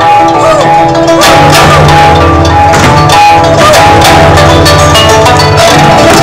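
Loud performance music: held melody notes over a low bass line, with quick percussion hits throughout.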